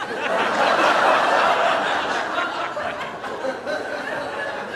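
Studio audience laughing, a big burst of laughter that swells at once, peaks about a second in and slowly fades.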